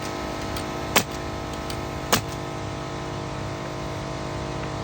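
A steady machine hum holding even tones, with two sharp knocks about a second apart in the first half.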